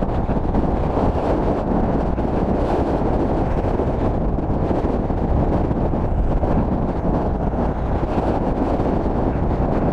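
Steady rush of wind buffeting the microphone of a camera travelling at speed downhill, mixed with the roll of longboard wheels on tarmac.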